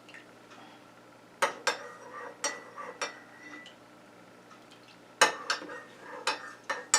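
Metal spoon clinking against a ceramic coffee mug: a few separate clinks about a second and a half in, then a quicker run of clinks from about five seconds in.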